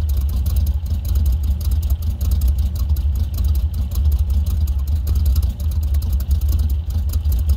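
Chevrolet 454 big-block V8 in a 1977 C10 pickup idling steadily with a deep, low rumble.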